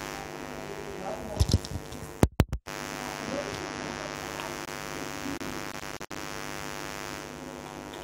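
Steady electrical mains hum on the recording. There are a couple of short low thumps a little over a second in, and the sound drops out completely for a moment about two seconds in.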